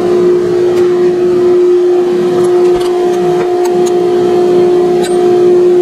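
A shop dust collector running with a steady, constant hum through the CNC router's dust hose, with a few faint metal clicks as a wrench works the spindle's collet nut during a bit change.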